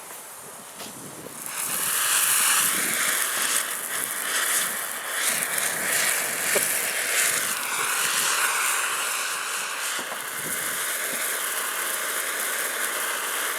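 Lit firework spraying sparks with a loud, steady hiss that starts about a second and a half in and keeps going.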